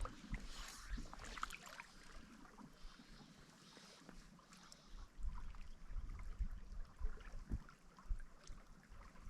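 Wind buffeting the microphone in uneven gusts over a faint steady hiss of running stream water, with scattered light clicks and rustles.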